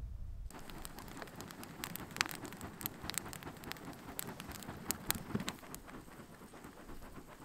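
Wood fire crackling, with sharp pops scattered through it, the loudest about two seconds in. It begins abruptly about half a second in.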